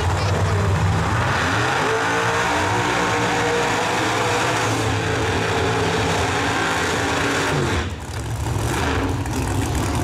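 Drag race car engines revving hard, their pitch climbing and falling repeatedly. The sound drops briefly about eight seconds in, then an engine runs up again.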